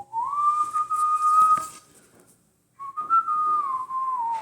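A person whistling a tune: a clear single tone that steps up, holds, breaks off briefly, then comes back and slowly falls in pitch.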